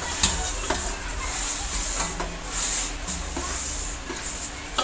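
Coarse-ground moong dal and dry-fruit mixture poured from a steel vessel into a pot of hot sugar syrup: a grainy, hissing rush in waves, with a few short metal knocks of the vessel against the pot.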